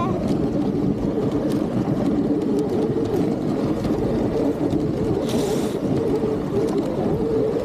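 Dog sled runners gliding over a packed snow trail, with wind rushing on the microphone, as a steady low noise. A brief higher scraping hiss comes about five seconds in.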